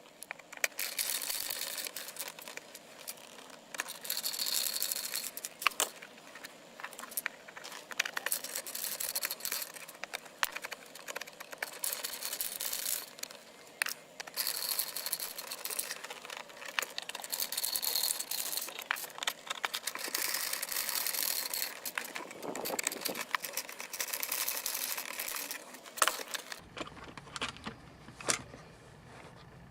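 Hand work on a car's plastic center console: small clicks, taps and rattles of a hand tool and loose screws and parts being handled as the console is taken apart, over a scratchy rustling.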